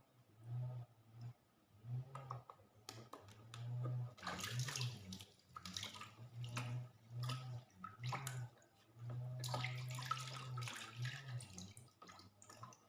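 Water splashing and pouring in irregular bursts during a bath, busiest from about four seconds in, over a low hum that comes and goes.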